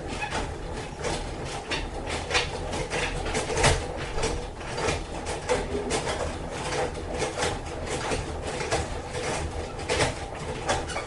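Irregular mechanical clicking and rattling, several clicks a second, over a steady low rumble.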